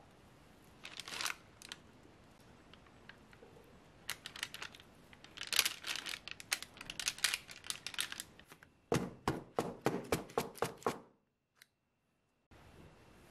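Silicone spatula spreading thick cake batter over parchment paper in a baking tin: wet squishing and papery scraping strokes, coming thick and fast from about four seconds in. Near the end there is a run of louder strokes that cuts off suddenly.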